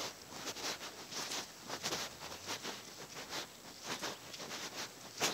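Bare feet stepping through dry, matted grass and loose dirt: a string of irregular soft rustles and crackles.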